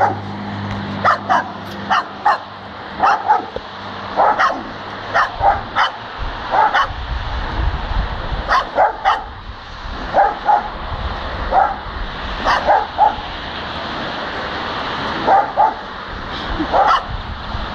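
Two dogs, a German Shepherd and a small curly-coated dog, barking: short, sharp barks, often in quick pairs, about one a second, with a pause of a couple of seconds about three-quarters through.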